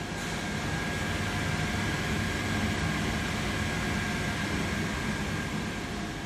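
Steady running noise of a powered-up fiber laser cutting machine's electrical control cabinet, with servo drives and cooling fans humming and a thin constant high whine over the top.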